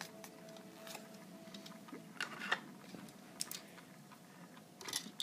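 Faint, scattered clicks and light taps of small objects being handled: a die-cast model car and a small paper display card being set in place on a display stand. A faint steady hum sounds through the first two seconds.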